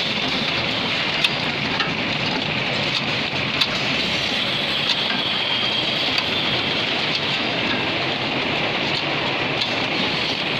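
Automatic terry towel sewing machine running: a steady mechanical din with a few sharp clicks at irregular moments.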